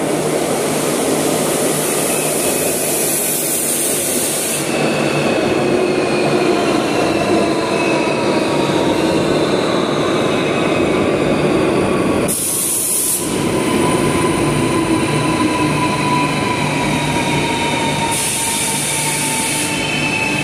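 Renfe Civia electric commuter train entering an underground station and rolling along the platform, a steady rumble with a whine of a few held tones. Three short high-pitched bursts come through: one near the start, one in the middle and one near the end.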